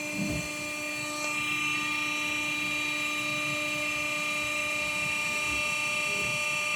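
An apartment trash compactor's pump motor runs steadily with a constant whine as the platen goes through a cycle. With the chamber empty, this is one of its last cycles before the new photo eye sensor lets it shut off.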